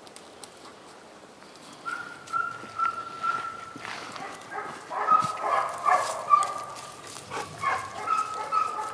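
Dog whining in repeated high whimpers, starting about two seconds in and coming thickest in the middle, with scattered crackles.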